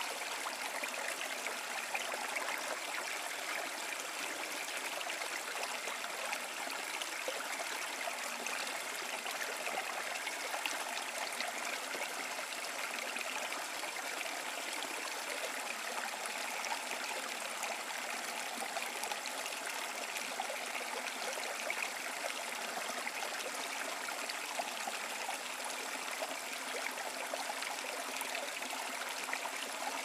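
Small mountain creek spilling in two little cascades over mossy rocks into a shallow pool: a steady splashing, babbling rush of water, light and without deep rumble.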